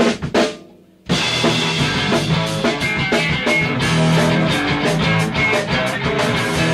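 Rock music with drums: two opening hits ring out and fade away, then the full band comes in about a second in and plays on steadily.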